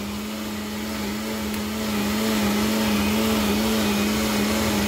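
Electric blender running steadily at one pitch, puréeing the mole sauce of raw tomato and garlic.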